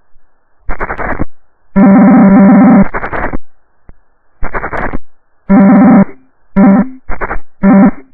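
Audio-crash glitch: a loud, distorted, buzzy synthesized tone stuttering in seven abrupt chunks of uneven length, each cut on and off sharply with short gaps between.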